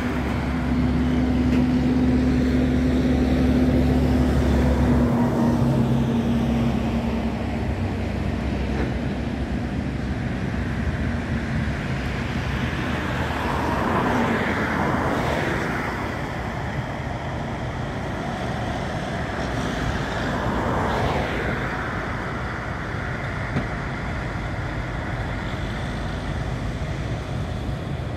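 Road traffic: vehicles passing, with two louder pass-bys that swell and fade about 14 and 20 seconds in. A steady low engine-like hum underneath stops about five seconds in.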